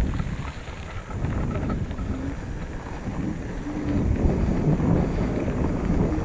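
Wind buffeting the microphone of a camera mounted on a moving bicycle, a low, uneven rumble, mixed with the tyres rolling over a dirt track.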